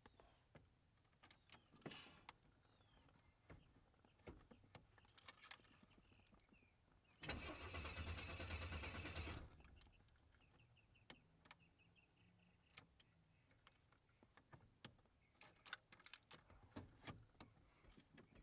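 Oldsmobile Cutlass Supreme's starter cranking the engine for about two seconds, around the middle, without it catching: it cranks but won't start, even with a new fuel filter fitted. Scattered light clicks come before and after.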